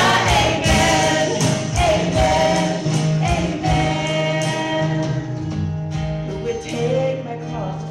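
Gospel worship song with voices singing over a band, a steady drum beat under sustained chords, getting a little quieter toward the end.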